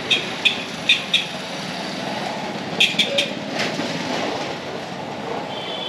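Street traffic in a narrow lane: motor scooters and motorbikes running past over a steady street hum. Short, sharp high chirps or beeps come in a quick string during the first second and again as three quick ones about three seconds in.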